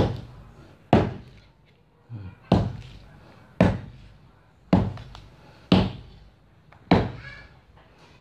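A series of about eight heavy thuds, roughly one a second, each sharp at the start and dying away quickly, like repeated blows of a tool.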